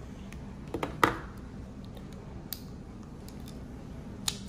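Small LEGO plastic pieces clicking as they are handled and pressed together: a few light clicks, then a sharp snap about a second in, and another snap near the end.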